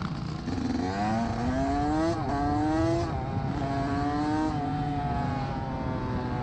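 Dirt bike engine revving. The pitch climbs twice, holds briefly, then slides slowly down.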